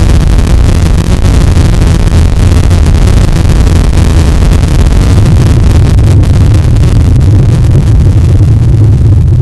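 Loud industrial noise music: a harsh, unbroken wall of noise with a heavy low rumble beneath it.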